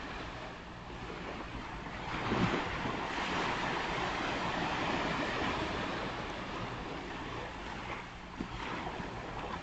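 Ocean surf: waves breaking and washing up the beach in a steady wash of noise that swells about two seconds in and eases near the end.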